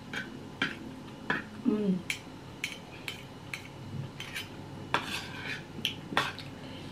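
Fork and spoon clinking and scraping against a plate while eating, a dozen or so sharp clicks at irregular intervals. A short hum of a voice a little under two seconds in.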